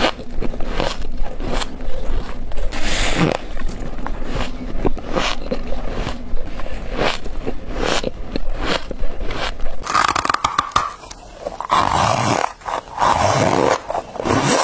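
Close-up crunching and squeaking of soft, coloured freezer-frost ice being bitten and chewed, with many quick crunches in a row. About ten seconds in, the sound changes to a different recording of bites into frosted ice, with louder, more spaced-out crunches.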